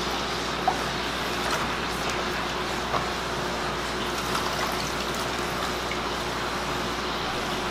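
Steady bubbling and running water of an aerated aquarium, an air stone sending a column of bubbles up through the tank, with two small knocks about a second in and about three seconds in.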